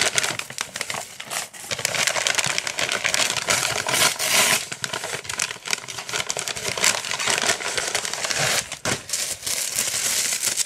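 Paper packaging crinkling and rustling continuously as a parcel is unwrapped by hand: crumpled brown packing paper and a paper bag being handled and pulled apart.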